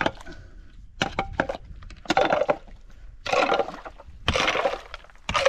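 A pickaxe digging into wet stones and gravel, about five strokes roughly a second apart, each a knock followed by a rattle of shifting stones.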